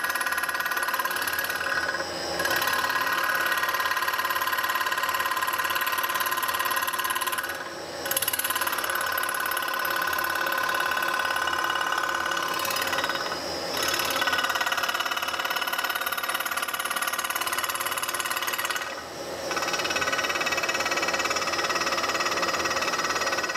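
Milling machine end mill cutting a metal cover: a steady, loud cutting whine with several ringing tones. It dips briefly about every five to six seconds, as the cutter comes off the work.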